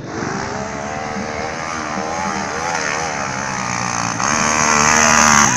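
Dirt bike engine revving under load, its pitch repeatedly rising and falling, growing louder about four seconds in.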